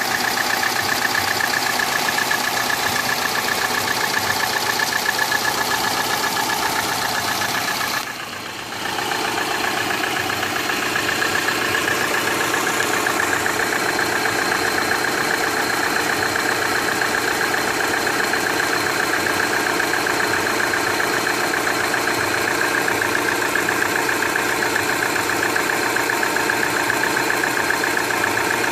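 Subaru EJ18 1.8-litre flat-four engine idling with a rapid regular knock. The owner says the knock now persists when the engine is hot and suspects it comes from the number 4 cylinder. The sound briefly drops in level about eight seconds in.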